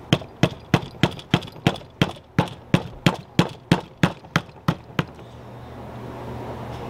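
Rapid, evenly spaced sharp knocking, about three strikes a second, that stops about five seconds in.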